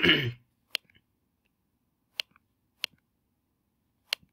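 Four sharp clicks of a computer's pointing device, spaced unevenly, each followed by a fainter second click as the button is pressed and released.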